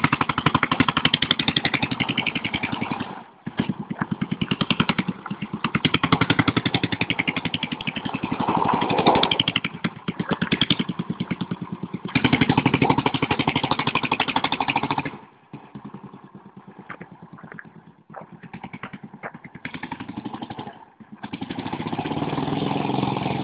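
Homemade go-kart's small engine revving hard in several bursts, with short dips as the throttle comes off between them. It falls to a faint running as the kart moves away, then comes up loud again near the end as it returns.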